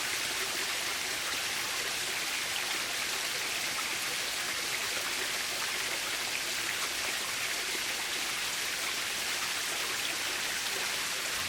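Waterfall: a steady, unbroken rush of falling and splashing water, hissy and bright.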